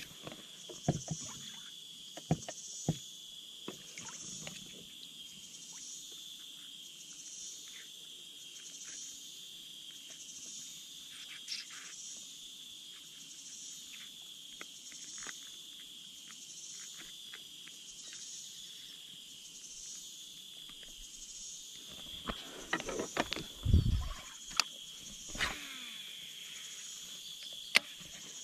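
Insect chorus: a steady high buzz with a second, higher band that pulses about once a second. Scattered faint clicks and knocks run through it, and a cluster of louder knocks with one heavy thump comes near the end.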